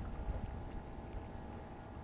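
Low, steady wind rumble buffeting the microphone.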